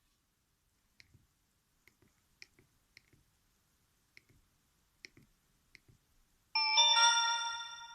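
Soft, irregular clicks from the keypad of a Sony Ericsson S312 mobile phone as it is operated, then a ringtone starts suddenly from the phone's speaker near the end: a loud ringing chord that fades over about a second and a half.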